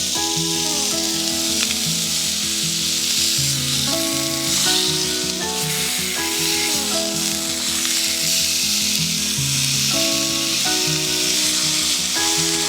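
Food sizzling in a hot pan, a steady hiss under background music with a melody of held notes.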